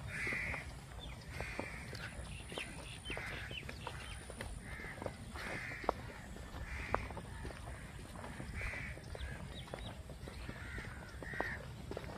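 Crows cawing over and over, about one call a second, with footsteps on a dirt path and a low wind rumble on the microphone underneath.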